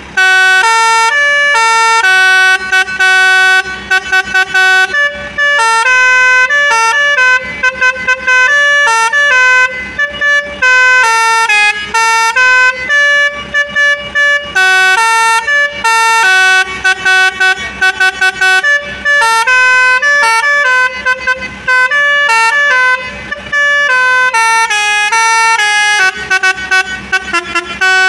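Basuri telolet horn playing a loud, fast tune: a run of stepping notes, some short and clipped and some held, with brief breaks between phrases.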